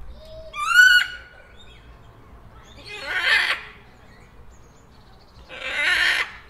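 Parrot screeching three times, about two and a half seconds apart. The first is a short rising squawk; the other two are longer, harsh raspy screeches.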